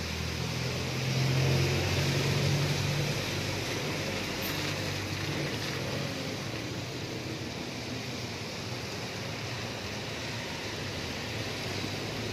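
Road traffic on a rain-soaked street: a jeepney's diesel engine hums past, loudest a second or two in. Throughout there is a steady hiss of rain and tyres on the wet road.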